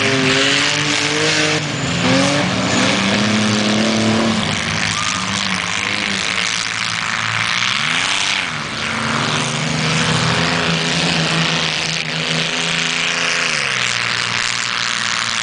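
Several stock pickups, SUVs and vans racing on a dirt track, their engines revving up and down together over a steady wash of engine noise. One vehicle's engine rises and falls as it passes close by about eight seconds in.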